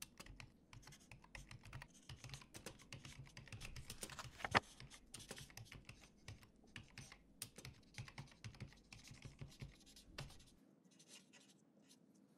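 Faint typing on a laptop keyboard: quick, irregular key clicks, with one louder click about four and a half seconds in, stopping about two seconds before the end.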